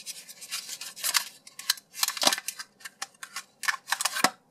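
Thin clear plastic clamshell packaging crinkling and crackling as it is pried apart by hand and the squishy toy pulled out: a run of irregular sharp crackles and snaps that stops shortly before the end.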